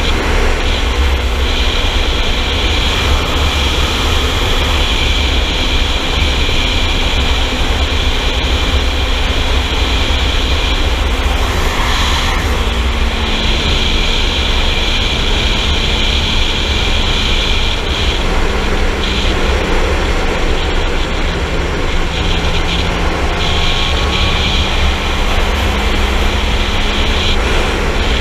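Sport motorcycle cruising at steady speed: heavy wind rumble on the microphone over the engine's steady drone, which eases slightly lower in pitch after the middle.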